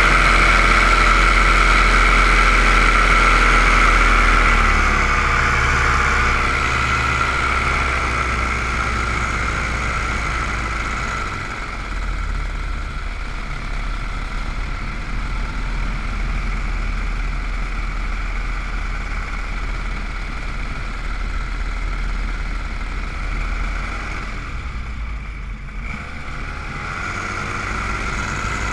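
Small drone's motors and propellers whining steadily, heard from the aircraft itself. The pitch and level drop about five seconds in, dip again briefly near the end and then climb.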